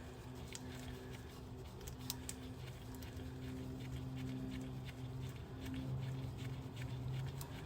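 Scattered faint clicks of a ratchet and socket backing out a transmission fill-plug bolt, over a steady low hum.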